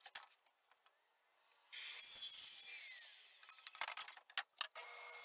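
A wooden 2x6 board rubbing and sliding along a saw table, with a few light knocks near the end as it is set in place.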